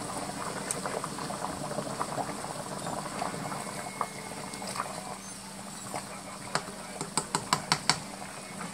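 Ground beef and spaghetti sauce sizzling and crackling in a frying pan, with a pot of water at a boil. Near the end there is a quick run of about six sharp taps.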